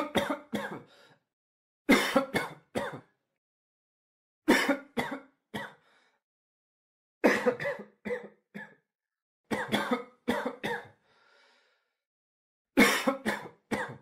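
A person coughing in six short fits of two or three coughs each, about every two and a half seconds, with dead silence between the fits.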